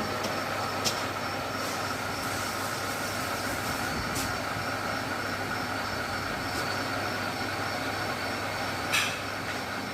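CG6280C metal lathe running steadily, a mechanical hum with a steady high whine. A few sharp clicks come through, the loudest near the end.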